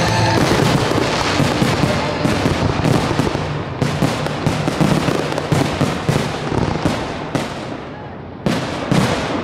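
Aerial fireworks display in a dense barrage: rapid overlapping bangs and crackle from shells bursting one after another. It thins out and grows quieter, then a sudden loud salvo comes near the end.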